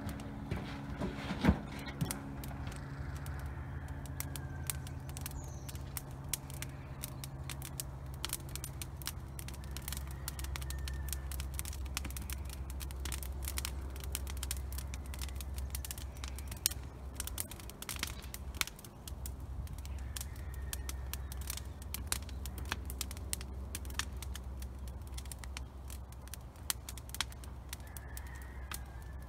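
Burn pile of walnut branches catching fire, crackling with sharp snaps and pops that come more often after the first few seconds. A low steady hum runs underneath, and a few short bird chirps are heard.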